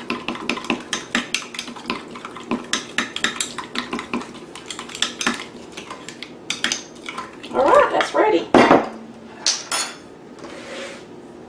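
A spoon stirring in a glass measuring cup, clinking quickly and repeatedly against the glass as melted butter, sugar and vanilla are mixed, with a louder knock against the cup about eight and a half seconds in.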